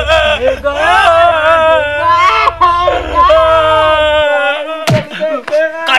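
A person wailing loudly in long, drawn-out cries that bend up and down in pitch. A low rumble underneath cuts off suddenly about four seconds in.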